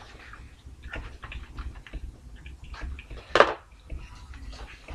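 Scattered small clicks and rustles of food and paper packaging being handled at a table, with one louder brief sound about three and a half seconds in.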